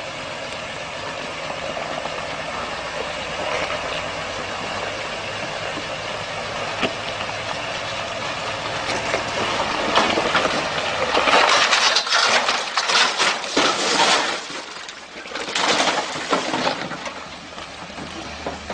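A 4x4's engine running steadily as it crawls along a steep rocky bank, then the truck rolls over and tumbles: loud crashing and clattering in several clusters from about ten to seventeen seconds in.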